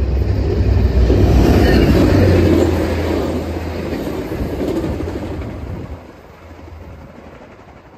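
Tri-Rail commuter train of bilevel coaches rolling past close by, its wheels rumbling and rattling on the rails. It is loudest in the first three seconds, then fades and drops away about six seconds in.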